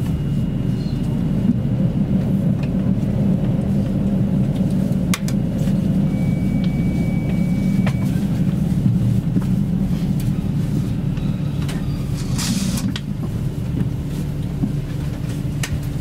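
Steady low diesel rumble of a KiHa 85 series diesel railcar, with a few sharp clicks and a brief high-pitched whine about six seconds in.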